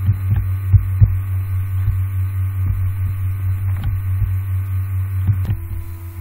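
Steady low electrical hum on the recording, with irregular soft low thumps over it.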